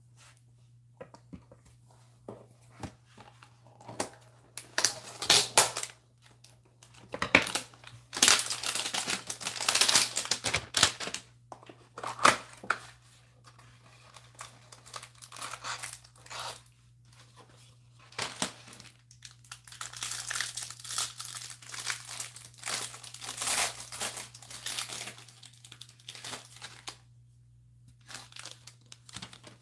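A trading-card hanger box being torn open and the plastic wrapper around its cards crinkled and pulled off by hand. The tearing and crinkling come in irregular bursts, loudest about a third of the way in.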